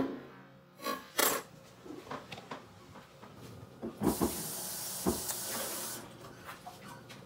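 Objects knocked and handled with a few short clicks, then a steady hiss for about two seconds.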